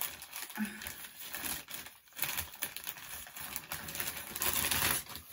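Thin plastic packaging bag crinkling as it is pulled open by hand and rummaged through, loudest near the end.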